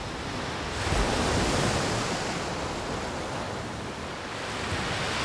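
Sea surf breaking on a beach: a steady rush of waves that swells louder about a second in.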